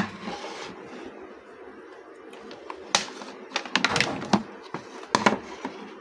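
Plastic handling noises: the hair dryer, its power plug and cord moved about, with a cluster of clicks and knocks about three to four seconds in and another just after five.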